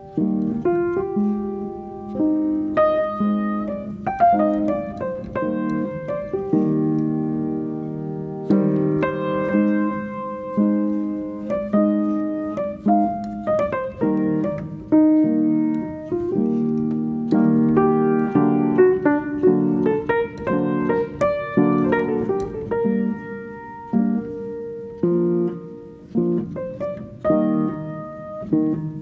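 Background piano music: a slow run of struck notes and chords, each ringing and fading before the next.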